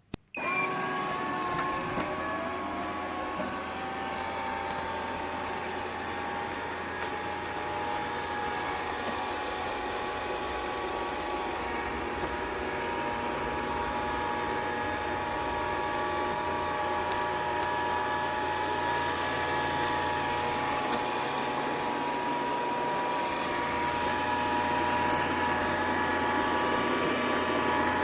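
Deik robot vacuum cleaner starting a cleaning run: a click, then its suction fan and brush motors spin up with rising tones in the first couple of seconds and settle into a steady whirring whine over a low hum.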